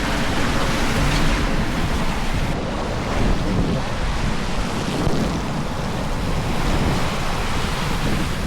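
Steady rushing of water with wind buffeting the microphone.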